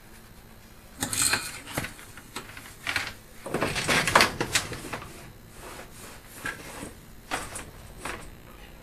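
Irregular knocks, clicks and scraping as a sewer inspection camera's push cable is handled and fed into the drain stack through the test tee. The loudest stretch of clattering comes about three and a half to four and a half seconds in.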